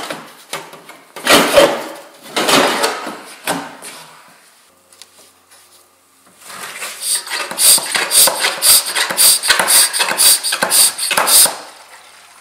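Metal exhaust pipes and their springs clattering and scraping as the snowmobile's expansion chambers are worked loose. After a pause comes a quick, steady run of squeaky strokes from a hand-pumped Liquivac fluid extractor, drawing coolant out of the engine's head.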